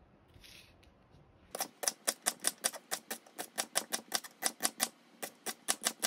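Chef's knife chopping celery on a wooden cutting board: a rapid, even run of knife strikes on the board, about five a second, starting about a second and a half in.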